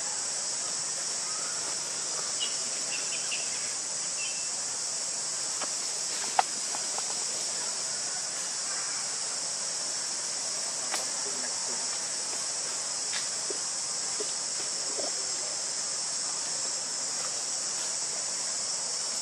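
Steady high-pitched drone of an outdoor insect chorus, with a few faint chirps and scattered sharp clicks, the loudest click about six seconds in.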